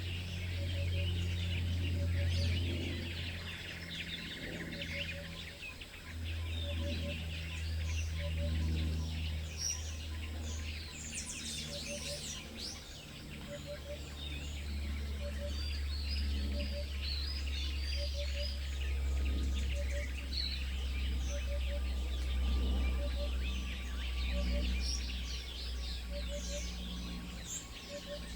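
Small birds chirping and calling busily at a bird feeder, many short notes overlapping, over a steady low rumble.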